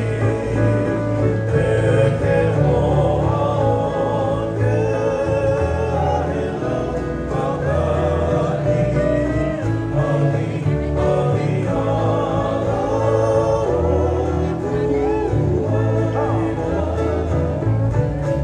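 Music with a group of voices singing together over instrumental accompaniment and a steady bass line.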